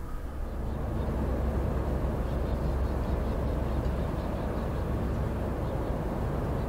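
Steady low rumble of a small coastal tanker's engine as it passes close by, with a wash of wind and water noise over it.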